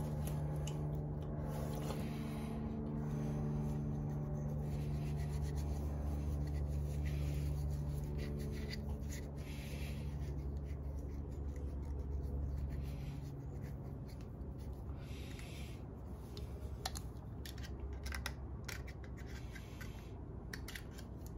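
Hand rubbing and scratching with a scouring pad as a part is wiped clean, with scratchy clicks that get busier near the end. Under it a steady low machine hum dies down about two-thirds of the way through.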